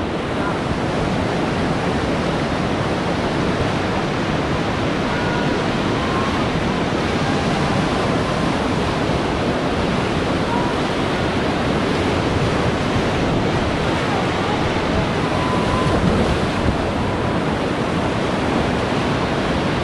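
Steady rushing of whitewater river rapids around the raft, with wind buffeting the microphone.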